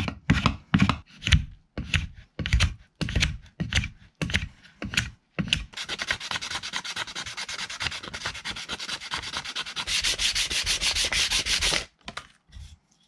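Hand-sanding a small scrap-wood handle to round it into a curve. For about the first five seconds there are separate strokes, about two a second, of a hand-held block rubbed against the wood. Then comes fast, continuous rubbing with sandpaper, loudest near the end, which stops abruptly about twelve seconds in.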